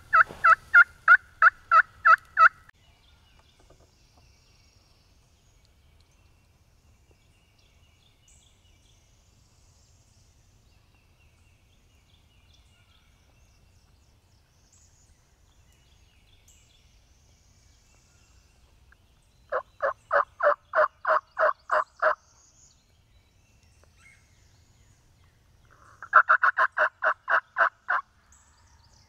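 Wild turkey calling: three loud series of evenly spaced notes, about four a second. The first is at the start, the second about twenty seconds in, and the third near the end.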